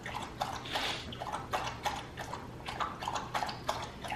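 A dog lapping water from a bowl, a quick regular run of wet laps about four to five a second.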